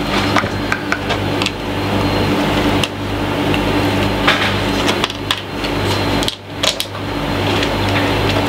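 A steady machine hum with scattered light clicks and knocks from hands working a small plastic box and its screws against the ceiling overhead.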